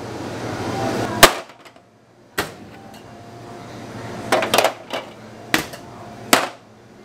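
Metal bread-loaf pans knocking against a work surface and rack as freshly baked loaves are turned out: a series of sharp metallic knocks, about seven in all, the loudest about a second in and a quick cluster past the middle.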